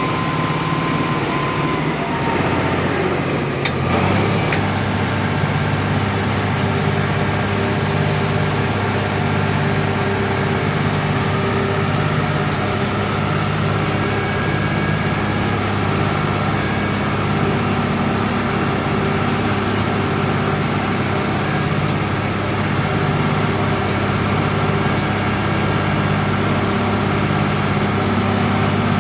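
Heavy diesel engine of logging earth-moving machinery running steadily, with a low pulsing about once a second. About four seconds in there are a couple of clicks and the engine note shifts.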